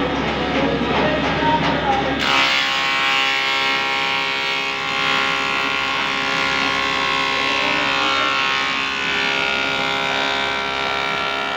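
Electric wood planer running with a steady, multi-toned whine as boards are fed through it. The sound changes abruptly about two seconds in.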